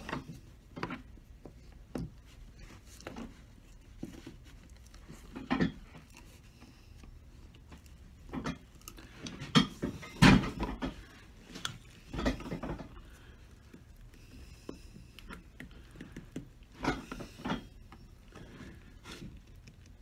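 Cutting nippers clicking, knocking and scraping on a cowboy boot's heel as the nails holding a plastic heel block are snipped and the block is worked loose. The knocks come irregularly, the loudest pair about halfway through, with faint rubbing between them.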